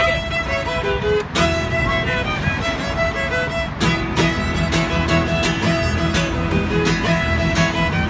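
Acoustic string trio playing a folk tune: a fiddle carries the bowed melody over a steadily strummed acoustic guitar and a plucked upright double bass.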